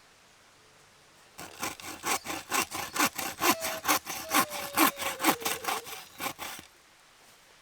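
Hand saw cutting wood in quick, even back-and-forth strokes, about four a second, with a faint squeak in some strokes. It starts over a second in and stops abruptly near the end.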